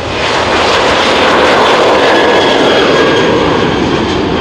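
Boeing 737 jet airliner's twin turbofan engines passing close and loud, the noise swelling in the first half second, then its main band sliding down in pitch as the aircraft goes by, with a thin high whine above.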